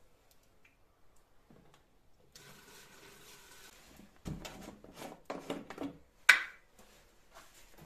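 Plastic canisters and a screw cap being handled: a faint hiss, then a run of irregular knocks and rattles, and one sharp click about six seconds in, the loudest sound.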